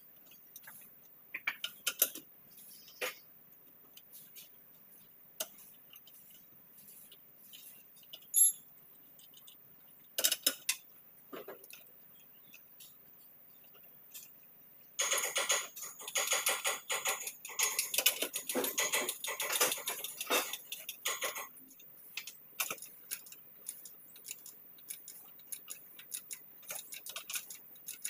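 A steel wrench clinking on the wheel nuts of a tractor's rear wheel: scattered single clanks and clicks, then a spell of several seconds of rapid metallic clicking and rattling around the middle.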